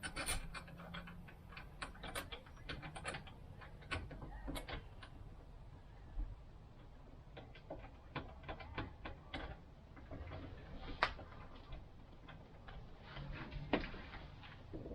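Irregular light clicks and taps of hand work on the door or its trim and siding, with a couple of sharper knocks near the end.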